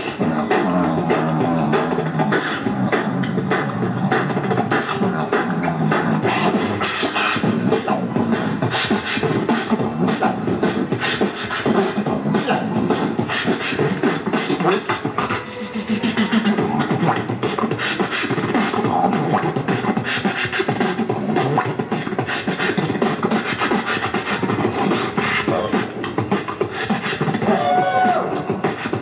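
Beatboxing into a handheld microphone: a fast, continuous vocal beat of clicks and percussive bursts, with hummed bass notes underneath.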